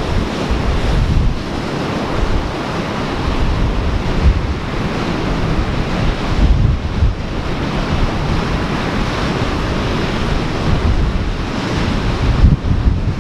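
Ocean surf washing steadily, with wind buffeting the microphone in irregular low rumbles.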